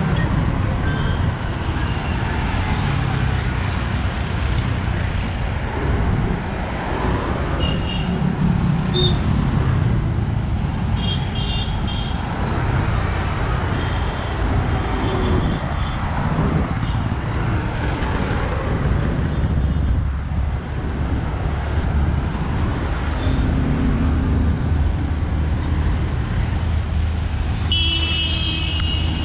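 Steady road traffic on a busy city road, cars and auto-rickshaws passing, with short vehicle horn toots now and then and a louder horn near the end.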